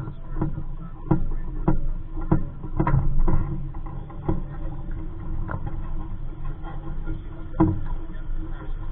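Small waves slapping against a small sailboat's hull in uneven knocks, over a steady rush of wind and water as the boat moves under sail.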